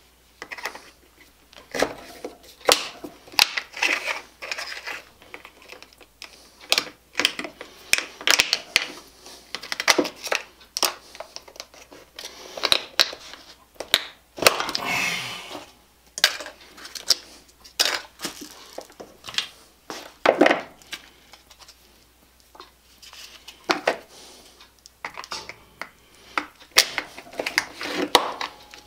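A pocket knife cutting and prying apart a thick red plastic cap on a wooden workbench: irregular sharp clicks, snaps and cracks of the plastic and the blade knocking the bench, with one longer crunching scrape about halfway through.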